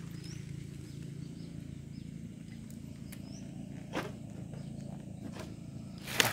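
Wire-mesh trap being handled: two sharp clinks, about four seconds in and near the end, over a steady low hum and a few faint high chirps.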